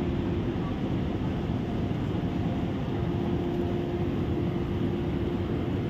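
Steady background noise of a large airport terminal hall, a broad even rumble and hiss with a low steady hum running through it.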